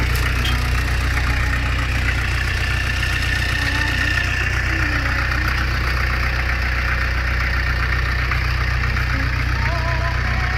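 Jeep engine running steadily with an even low drone.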